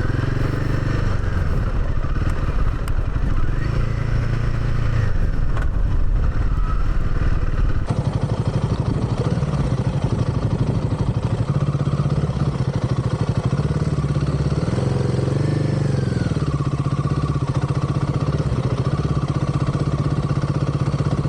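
Royal Enfield Himalayan 450's single-cylinder engine running while the bike is ridden along, its pitch rising and falling with the throttle, with a dip and climb about fifteen seconds in.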